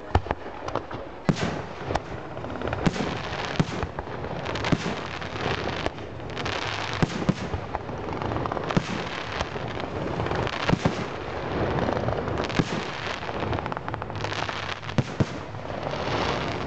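Fireworks display: many sharp bangs from bursting shells, some in quick clusters, over a continuous crackle between them.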